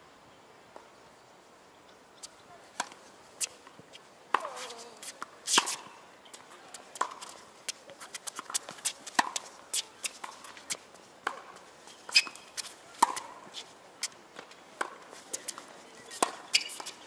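Tennis ball struck by rackets and bouncing on a hard court during a rally: a string of sharp pops, mostly about a second apart, the loudest about five and a half seconds in.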